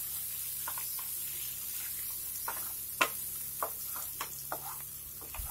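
Chicken fry sizzling in a nonstick frying pan as a spatula stirs and turns the pieces, giving scattered short scrapes and one sharper tap about three seconds in, over a steady low hum.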